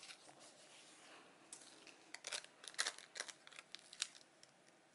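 Decorative paper being handled and pressed onto a notebook page: faint, with a run of soft crinkles and small clicks starting about a second and a half in.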